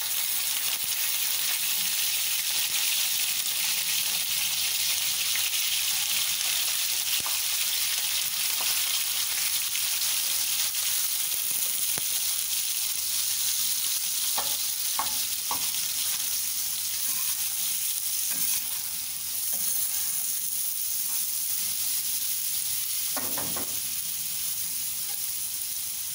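Minced beef sizzling on a hot tawa griddle, a steady frying hiss as it is spread and stirred with a spatula. There are a few short taps and scrapes of the spatula on the griddle about halfway through and again near the end.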